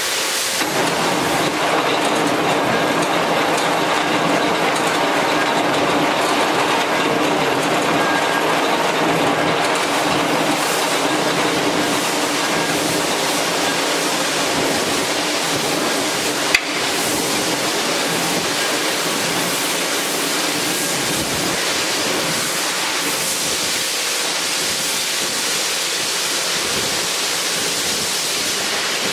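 Marvel Series 8 Mark vertical band saw running: a steady mechanical running noise from the blade and drive, with a single sharp click a little past halfway through.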